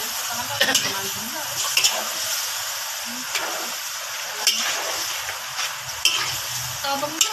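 Cubes of meat sizzling as they fry in a large metal wok, stirred with a metal spatula that scrapes and knocks against the pan about once a second.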